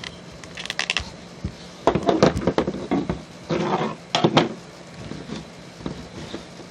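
Hard plastic clicking, scraping and clattering as a small toy chainsaw is worked out of a plastic action figure's gripping hand, with several bunched bursts of clatter in the middle.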